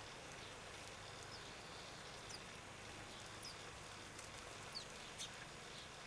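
Small garden birds at feeders giving a handful of brief, high, falling chirps, scattered over a faint steady background hiss.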